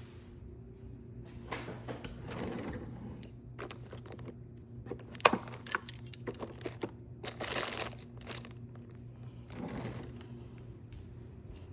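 Objects being handled: scattered clicks and brief rustles, with one sharp click about five seconds in and a quick run of smaller clicks after it, over a steady low hum.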